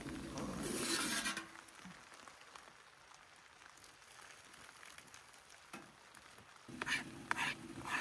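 Hot water from a metal pot poured over rolled oats in a collapsible bowl, with a brief loud hiss about a second in. Near the end a spork scrapes and stirs the oatmeal in a few short strokes.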